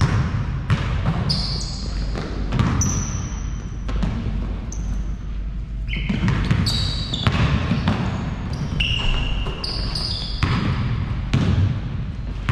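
Basketball game on an indoor court: the ball thudding repeatedly on the floor, with short high squeaks of sneakers on the court scattered between the bounces.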